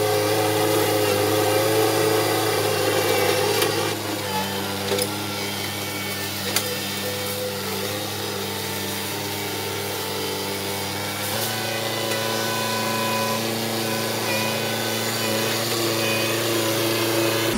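Kubota B3030 compact tractor's three-cylinder diesel engine running steadily while its front loader works brush, the engine note shifting twice. A few short sharp knocks about four to seven seconds in.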